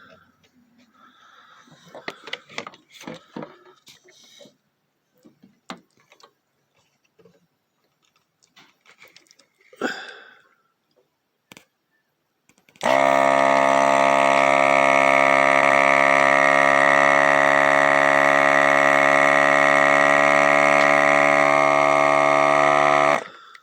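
Faint clicks and taps, then a Hammond CV organ holding a loud, steady chord for about ten seconds, starting and stopping abruptly.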